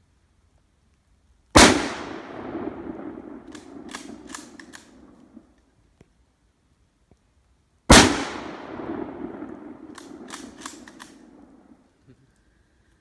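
Two rifle shots from a Mosin-Nagant M44 carbine (7.62×54mmR), about six seconds apart, each followed by a long rolling echo that dies away over about four seconds. A quick run of sharp clicks comes a couple of seconds after each shot.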